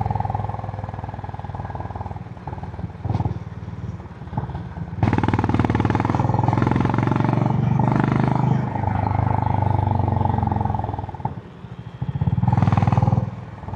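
Stock Honda CB350 H'ness single-cylinder engine and exhaust under way: running off throttle for the first few seconds, then getting louder as the throttle opens about five seconds in, easing off briefly near eleven seconds and pulling hard again before dropping off at the very end.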